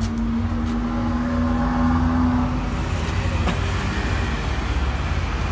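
Steady low rumble of a motor vehicle engine running, with a steady hum over it that stops about two and a half seconds in.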